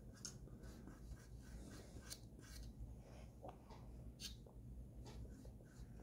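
Near silence with a few faint, short scratchy strokes: a paintbrush brushing paint onto a wooden birdhouse.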